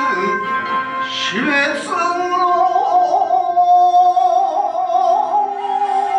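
Shigin, Japanese poetry chanting: a man's voice glides upward about a second in, then holds one long note with a slow wavering ornament, over a steady sustained musical accompaniment.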